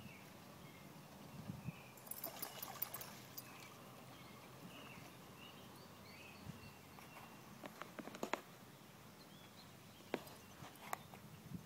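Faint splashing of a dog wading through shallow lake water, in a few short bursts, with distant birds chirping.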